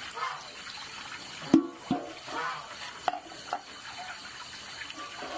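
Water splashing and trickling with a few sharp knocks, like dishes or pots being handled in water. The loudest knock comes about a second and a half in.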